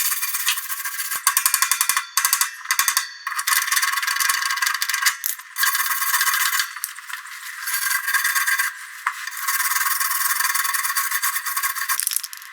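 Electric welding crackle: an arc sputtering and spitting in several runs with short breaks, as washers are tacked onto the mower's bagger mount.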